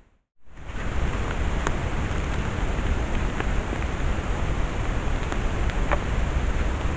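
Steady hiss and low rumble of outdoor noise picked up by a trail camera's microphone, starting after a brief dropout, with a few faint ticks.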